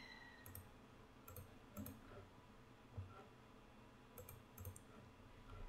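Near silence broken by a few faint computer mouse clicks, in two small clusters: the first second or two and again about four seconds in.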